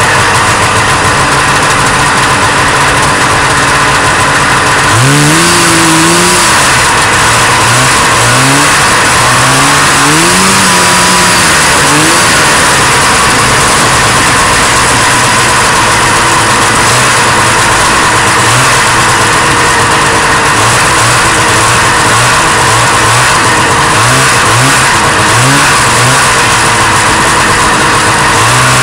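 1977 Arctic Cat Panther 5000 snowmobile's two-stroke engine running loud, revved up and down several times about five seconds in and again near the end.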